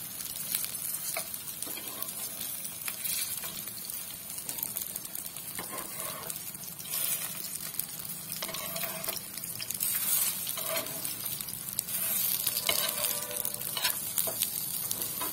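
Potato tikkis coated in cornflour batter sizzling steadily as they shallow-fry in oil on a flat griddle (tawa), with scattered clicks and scrapes of a metal fork and spoon against the pan as the patties are flipped.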